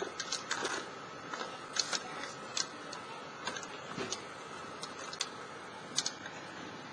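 Irregular sharp knocks and clicks of a Boston Dynamics four-legged robot's feet striking and scraping loose concrete cinder blocks as it walks over them, over a steady faint hum and hiss.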